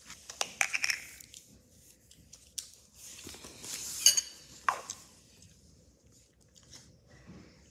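Hands kneading and pressing Play-Doh: soft squishes and rustles with scattered small clicks and taps, the loudest a sharp tap about four seconds in.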